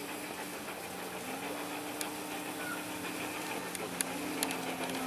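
Garden-railway model trains running: a steady hum that shifts in pitch a couple of times, with a few sharp clicks in the second half, over faint background voices.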